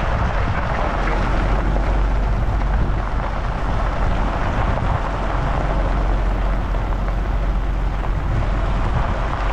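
Wind on the microphone outdoors: a steady rushing noise over a deep low rumble.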